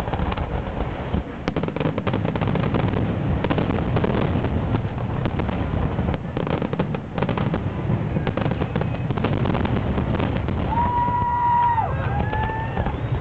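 Fireworks display: a dense, continuous run of bangs and crackles from bursting aerial shells. A few high whistling tones join in near the end.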